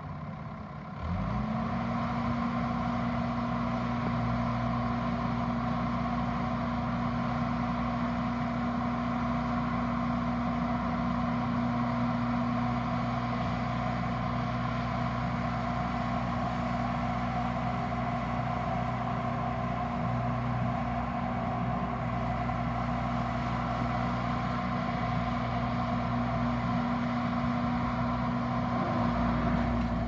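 Bobcat S650 skid steer's diesel engine revved up from idle about a second in, then held at a steady high speed while the loader arms lift the bucket and the machine drives.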